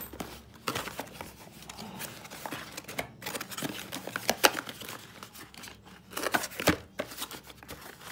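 Packaging being unwrapped by hand around a Hart 20V battery pack: irregular crinkling and rustling with sharp clicks and knocks, loudest about halfway through and again near the end.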